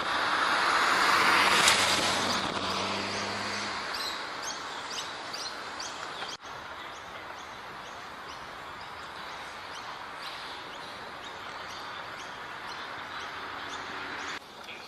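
A loud rushing noise with a low steady hum swells and fades over the first few seconds. Then a bird gives short, high, rising chirps, repeating about twice a second.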